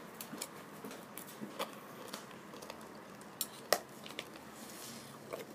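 Eating ice cream with a small spoon close to a phone's microphone: scattered light clicks and taps, the sharpest about three and a half seconds in, with soft mouth and handling sounds between them.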